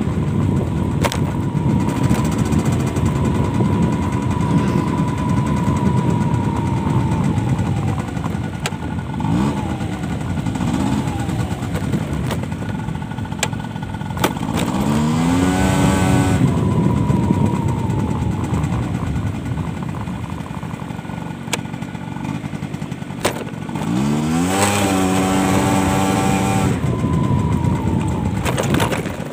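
Motorcycle under way, its engine rising in pitch three times as it accelerates (about a third of the way in, around the middle, and near the end) and easing back in between, over a steady rush of wind and road noise.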